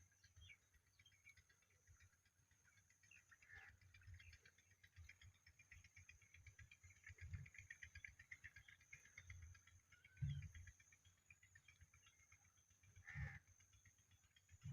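Near silence with faint, scattered chirps from an Indian ringneck parrot over a steady high hiss, and three soft low thumps in the second half.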